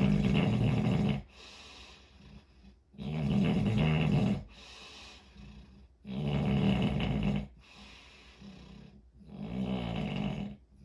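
Snoring: four deep snores, each lasting about a second and a half and coming about every three seconds, with softer breaths between them.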